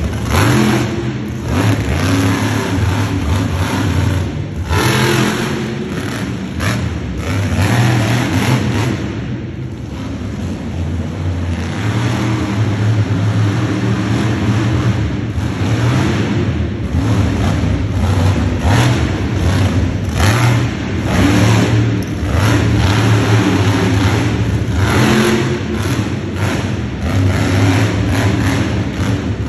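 Bounty Hunter monster truck's engine running loud, revving up and dropping back again and again as the truck drives and turns.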